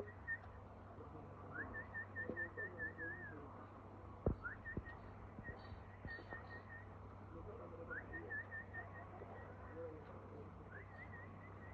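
A person whistling a repeated call four times, each a rising note followed by a run of short notes, while pigeons coo low in the background. A sharp knock comes about four seconds in.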